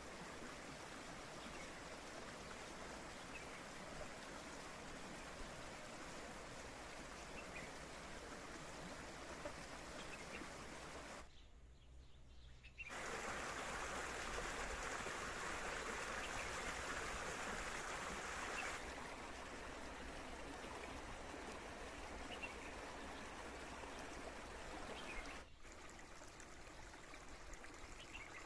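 Spring water running steadily in a stream. It breaks off for over a second about eleven seconds in, comes back louder for about six seconds, then settles back.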